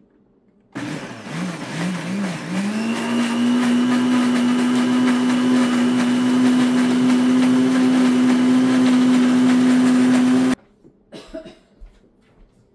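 Countertop blender grinding ginger, garlic and green chillies into a paste without water. The motor starts about a second in, its pitch wavering up and down a few times before it settles into a steady whine, then cuts off suddenly near the end, followed by a few light clicks.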